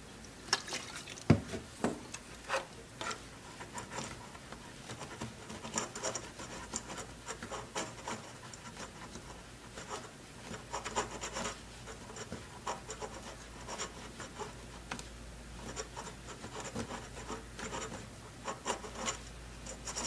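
Cloth soaked in isopropyl alcohol rubbing and scrubbing over the solder joints of a laptop motherboard in short, irregular scratchy strokes, cleaning off flux residue. A single louder knock comes about a second in.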